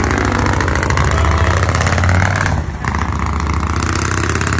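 Motorcycle engine running loudly with a fast, even exhaust pulse, dropping off briefly a little over halfway through before carrying on.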